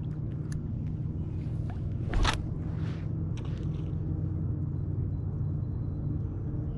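A steady low rumble, with a few scattered clicks and a short louder noisy burst about two seconds in.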